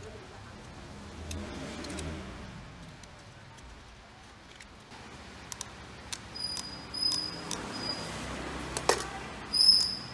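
Light clicks and rattles of the angle grinder, which is not running, being handled and turned over by hand. In the second half there are several short high-pitched chirps, the loudest near the end.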